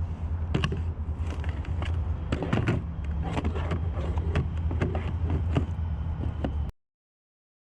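Repeated light knocks and clicks of handling on a kayak over a steady low rumble, then the sound cuts off abruptly to silence near the end.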